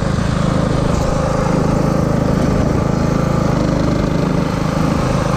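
Riding lawn tractor's engine running steadily under way, a loud even drone with a fast pulsing beat.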